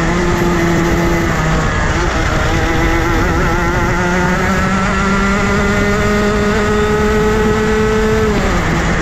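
Rotax Max Junior 125 cc two-stroke kart engine under power, its pitch dipping briefly about a second in, then climbing steadily for several seconds before falling sharply near the end as the throttle is lifted.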